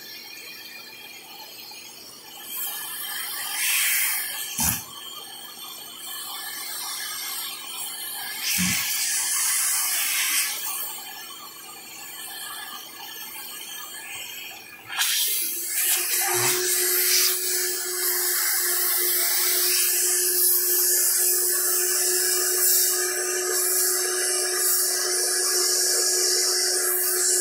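Vacuum cleaner running, air rushing through its hose nozzle, the sound surging and changing as a capuchin monkey's lips seal and unseal the nozzle, with a few sharp pops. About halfway through it settles into a louder steady rush with a held hum.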